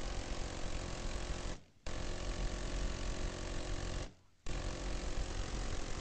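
Minigun firing in long bursts of about two seconds each, with short breaks between bursts about a second and a half in and again about four seconds in; the rate of fire is so high that the shots run together into one continuous buzz.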